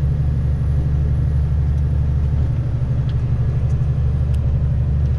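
Long-haul truck's engine and road noise heard inside the cab while driving: a steady low drone that holds even throughout.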